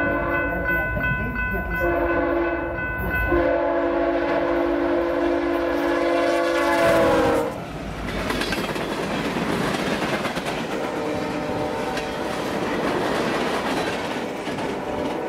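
BNSF diesel freight locomotive's air horn sounding a chord in long blasts as it approaches, its pitch dropping as it passes about seven seconds in. The horn then stops, and the rumble and wheel clatter of loaded tank cars rolling by follows, with a faint locomotive engine hum.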